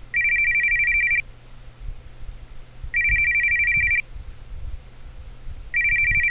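Telephone ringing with an electronic warbling ring, three rings of about a second each, about three seconds apart.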